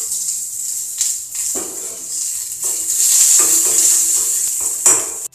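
Chopped onion with mustard seeds and chana dal sizzling in hot oil in a small steel kadai, a tempering being fried. A spoon stirs and scrapes against the metal pan, clinking several times.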